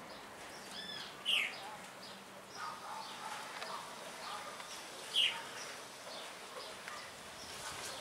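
Birds calling: many short chirps and whistles, with two loud falling whistled notes, one about a second in and another about four seconds later.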